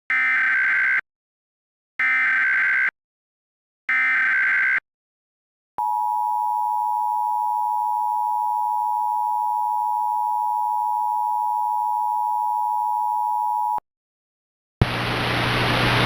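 Emergency Alert System tones. First come three short warbling data bursts about two seconds apart (the digital SAME header), then the steady two-tone attention signal held for about eight seconds. Near the end, after a short silence, a loud hiss of static starts and grows louder.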